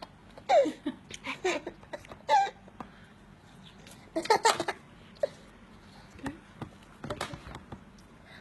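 Baby noises in short bursts: squeals and babbling sounds, some sliding down in pitch, loudest a little after two seconds and around four and a half seconds. A few small clicks come near the end.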